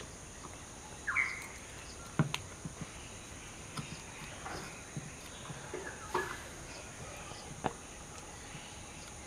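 Quiet workbench soldering: a few faint sharp clicks and light taps as a soldering iron works a lead onto a transistor pin, over a steady low background, with a short chirp about a second in.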